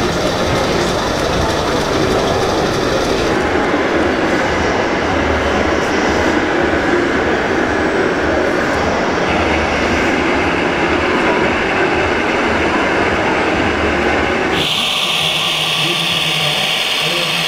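Steady, loud exhibition-hall noise from a model fair, with no clear single source. The sound changes abruptly three times, about 3, 9 and 15 seconds in, with a brighter, higher hiss in the last part.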